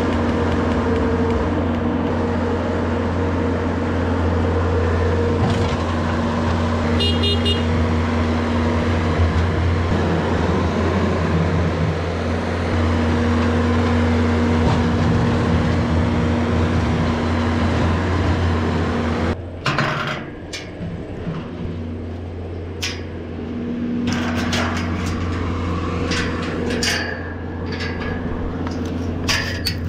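Bobcat S570 skid-steer loader's engine running steadily, a loud low hum with a held tone over it. Partway through it cuts off abruptly and gives way to a quieter engine hum with scattered clicks and knocks.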